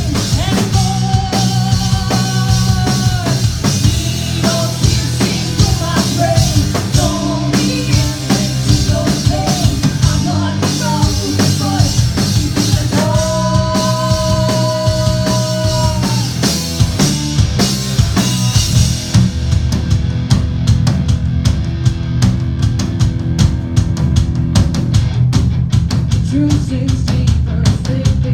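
Rock band playing live at full volume: drum kit, bass and guitar, with long held sung notes from a female lead singer. About two-thirds of the way in, the high end drops away and the sound turns darker, carried mostly by bass and drums.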